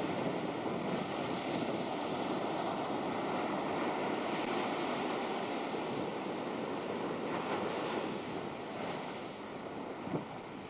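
Ocean surf breaking and washing in, a steady rush of water, with wind buffeting the camcorder microphone.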